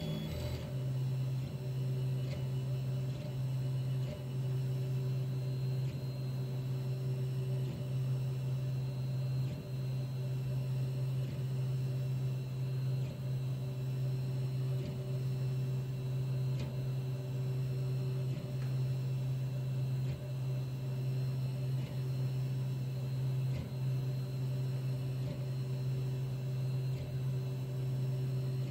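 3D4040N 3D printer running, a steady low hum.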